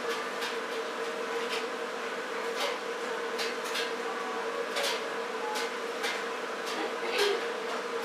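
A steady hum with irregular sharp ticks and clicks over it, one about every half second to second.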